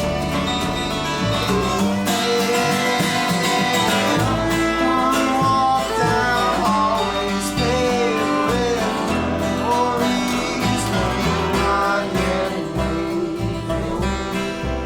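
Live acoustic folk band playing an instrumental passage: acoustic guitar with bass and a sliding melodic line from bowed viola or wordless singing.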